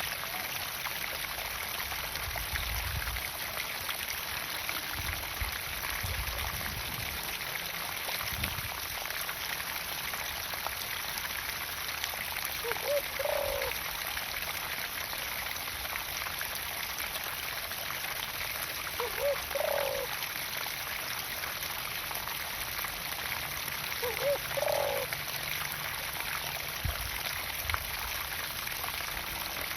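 Pumped water pouring steadily into a garden pond. A short call sounds three times, about five to six seconds apart.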